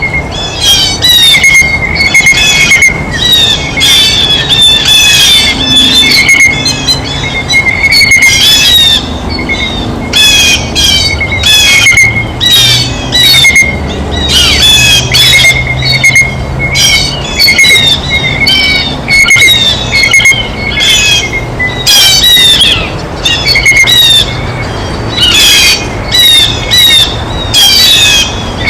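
Blue jays calling over and over: loud, harsh squawking calls in quick runs that keep going with only short breaks.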